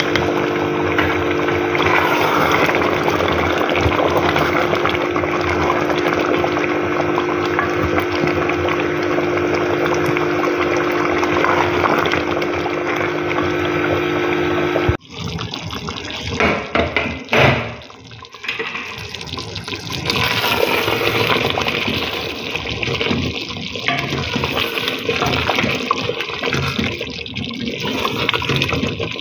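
Mutton korma gravy bubbling in a pot as a spatula stirs it. A steady hum with a few held tones runs under the first half and stops at a sudden cut about halfway. After that the bubbling and stirring go on, more unevenly, with a few knocks.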